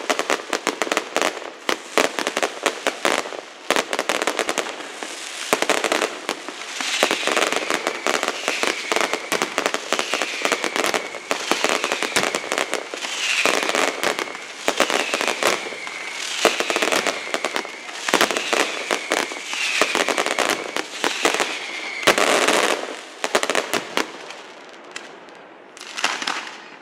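Fireworks display: dense rapid crackling and bangs throughout, with a series of about ten falling whistles roughly a second and a half apart in the middle, easing off shortly before a last burst near the end.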